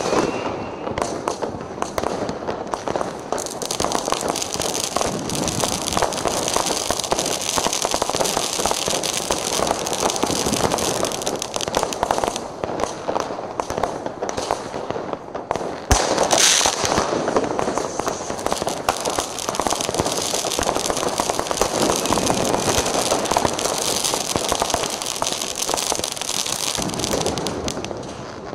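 Fireworks and firecrackers going off in a dense, continuous crackle of many bangs. One sharp bang about halfway through stands out. The din fades near the end.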